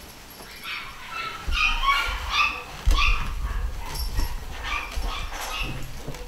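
Scottish Terrier puppies yipping and whimpering in a string of short, high-pitched calls as they play, over some low thumping.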